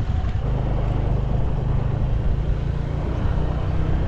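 Vehicle engine running steadily under way, a low even hum with road noise.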